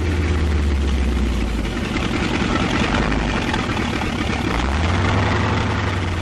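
Heavy tank engine running with a deep drone under a rough, noisy rumble. The low drone thins out about two seconds in and comes back strongly past the four-and-a-half-second mark.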